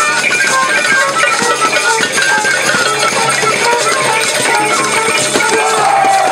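Street band playing a lively tune: short, quick melody notes from a brass horn and a flute over clicking hand percussion, one part of it a wooden stick played against a small box.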